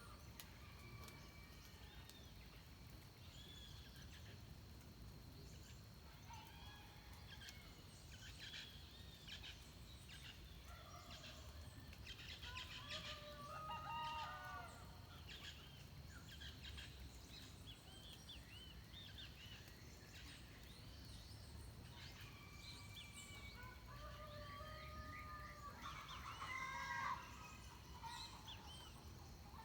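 Dawn chorus of several birds in Atlantic forest, many short whistled and arching calls overlapping, with louder bursts of calling around the middle and near the end.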